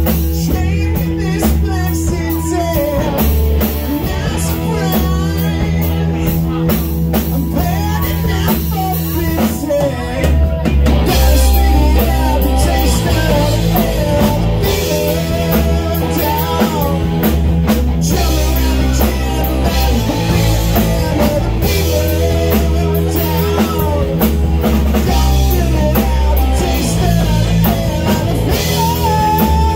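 Live rock band playing loud and steady: electric guitar, electric bass and a drum kit.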